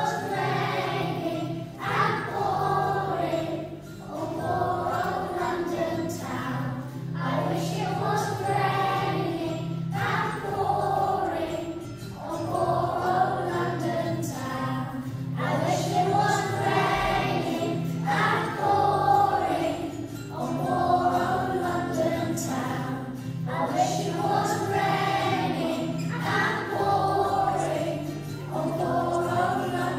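A group of young children singing a song together in unison, in phrases about two seconds long, over a steady instrumental accompaniment.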